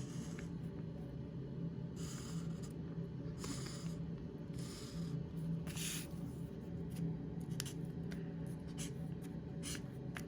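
Felt-tip marker tip drawn across paper in several scratchy strokes about a second apart, with small taps in between. A steady low hum runs underneath.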